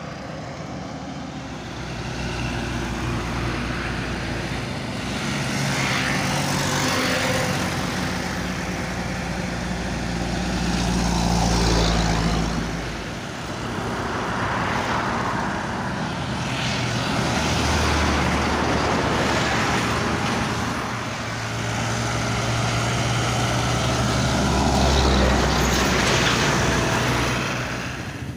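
Highway traffic: diesel trucks and smaller vehicles passing close by, tyre and engine noise swelling and fading as each one goes past, over a deep engine drone that rises and falls several times.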